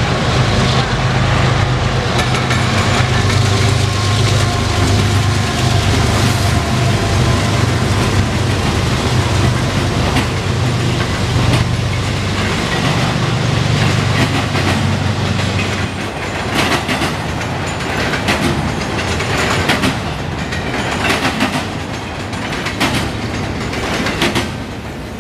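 CSX double-stack intermodal freight train passing: a low diesel-locomotive drone for the first half or so, then container-laden well cars rolling by, their wheels clicking over the rail joints in repeated clusters.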